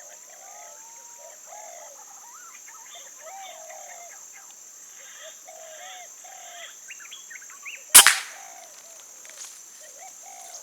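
Birds calling with short, varied notes over a steady high-pitched insect drone; about eight seconds in, a single sharp crack from a PCP air rifle firing.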